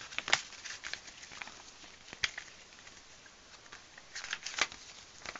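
A paper CD booklet insert being folded and handled: scattered rustles and small crisp clicks of the paper, with a burst of crinkling about four seconds in.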